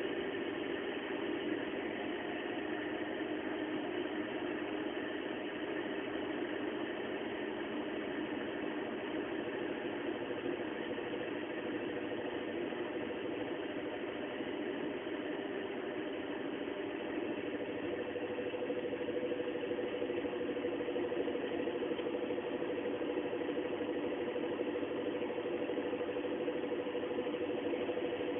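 Toyota Carina at motorway speed: steady road and engine noise with a tonal hum that grows louder about two-thirds of the way through as the car bears left around a bend. The noise is very bad in the bend, which the owner takes for a failing CV joint or wheel bearing.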